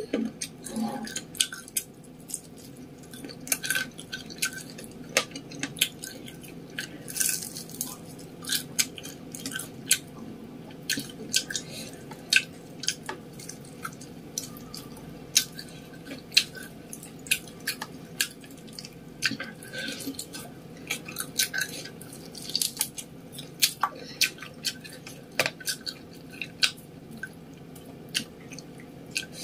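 Close-miked eating sounds: biting and chewing battered fried chicken, with many sharp crunches and wet mouth clicks at an uneven pace.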